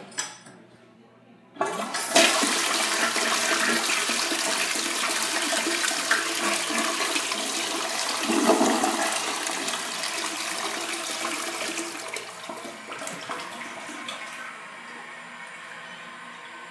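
Crane Plumbing Galaxy toilet flushed: a click of the handle, then a loud rush of water swirling down the bowl that lasts about ten seconds, fades, and settles to a quieter steady hiss near the end.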